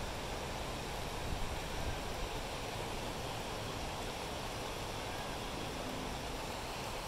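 Mark West Creek in flood after heavy rain, its swollen brown water rushing with a steady, even noise.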